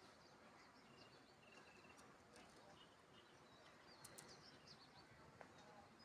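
Near silence: faint outdoor background with a few short, distant bird chirps.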